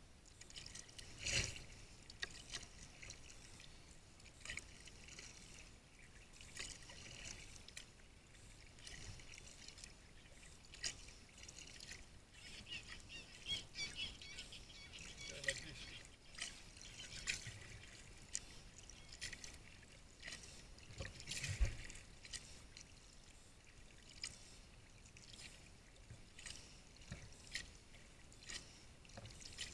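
Sea kayak paddle strokes: the blades splash in and out of the water and drip, in an uneven rhythm of about one stroke a second. A thump just over two-thirds of the way through is the loudest sound.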